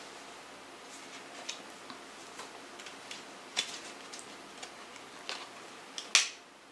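Handling a plastic CD jewel case while picking at a security label on it: scattered small clicks and crinkles, with a louder brief scrape about six seconds in.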